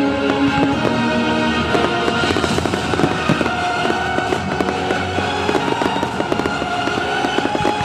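Fireworks finale: a dense, rapid run of crackles and bangs from aerial shells, thickening about two seconds in, with music playing underneath.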